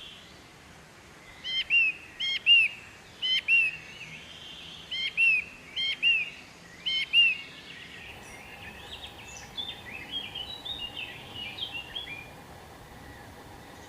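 A bird calling: a loud two-note call, a quick upward note then an arched one, repeated six times about once a second. Then, about halfway through, a faster run of quieter twittering chirps.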